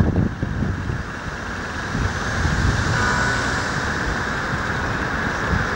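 Wind gusting on the microphone with a steady outdoor rush that swells about two seconds in and holds.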